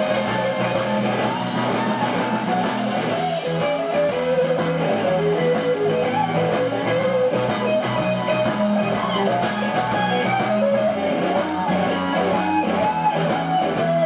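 Live blues band playing: an electric guitar leads with bending, wavering notes over a steady bass line and drums, with cymbals keeping an even beat.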